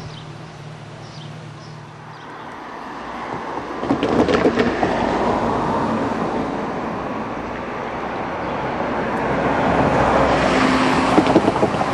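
Passenger train passing over the level crossing, a broad rumbling rush that swells in about four seconds in, with a few sharp clicks, and stays loud before building again near the end.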